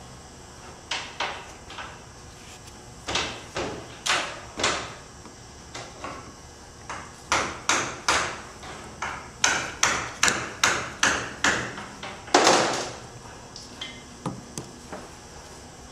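Small screwdriver clicking and scraping against the plastic pressure switches of a 6T70 transmission control module as they are pried out: a run of irregular sharp clicks, coming quickly in the middle, with a longer scrape near the end.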